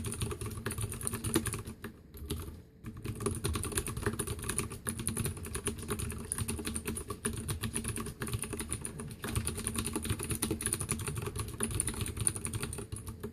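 Fast, continuous typing on a Leopold FC750R mechanical keyboard with clicky blue switches, a dense run of sharp key clicks with a short lull about two seconds in.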